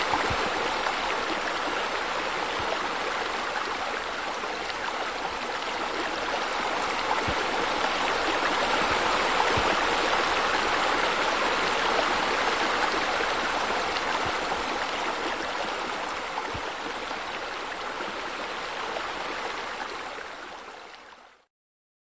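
Steady rushing, splashing water, like falling water from pool water features, fading out and stopping shortly before the end.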